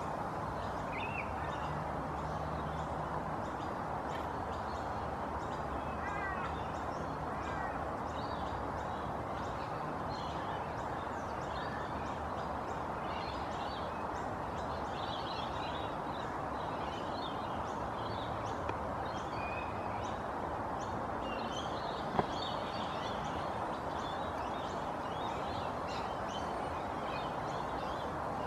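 Bush ambience: many small birds chirping and twittering on and off over a steady background rush, with a single sharp click a little over twenty seconds in.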